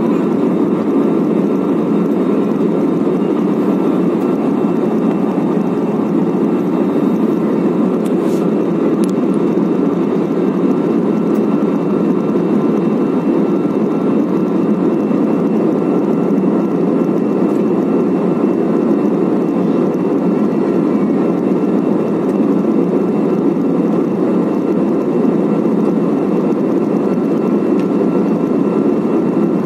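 Steady cabin drone of an Airbus A320-family jetliner in flight, heard from a window seat over the wing: jet engine and airflow noise, with a faint steady whine above it.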